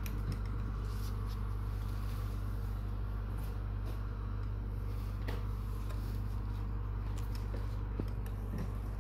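Steady low electrical hum, with a couple of faint clicks, one about five seconds in and one near the end.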